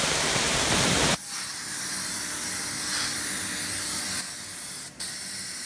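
Holztek RT1325V CNC router's spindle and bit running as a steady hiss over the board, loud for about the first second, then dropping sharply to a softer, higher hiss with a short dip near the end.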